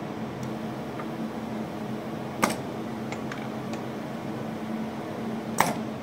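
Festo training station running: a steady conveyor-motor hum, broken by two sharp pneumatic clacks about three seconds apart and a few faint ticks between them as the actuators move the workpiece.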